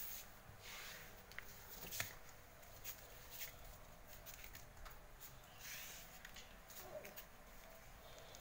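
Faint, scattered clicks and taps of large plastic building bricks being handled, with soft rustling.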